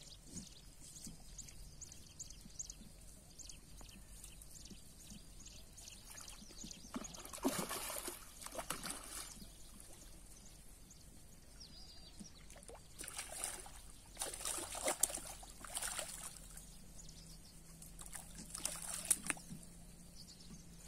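A hooked fish splashing at the water's surface as it is played on a line, in three bursts of splashing.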